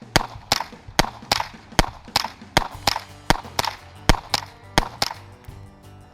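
Rapid .22 rimfire gunshots, about two to three sharp cracks a second and uneven in loudness, fired in a quick string at targets.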